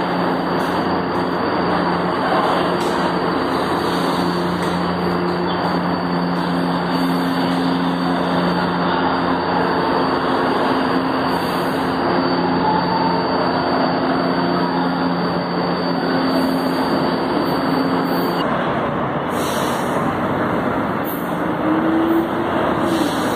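São Paulo Metro G-fleet train at a station platform: steady electric running noise with a low hum. A short rising tone comes near the end.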